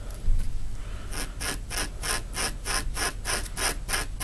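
A finger scratching back and forth over organza sash fabric on a hard surface, at about four quick strokes a second, pushing loose, snagged threads back into place. The strokes pause at the start with one soft bump and resume about a second in.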